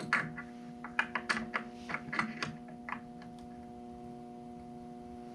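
Light, irregular clicks and taps of hand work on the skid steer's glass door hardware, stopping about three seconds in, over a steady electrical hum.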